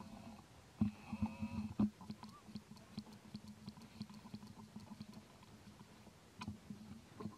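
Soft rustling and clicking from a macaque shifting on dry leaf litter with its infant, with a brief thin squeak about a second in and a run of quick high ticks a little later.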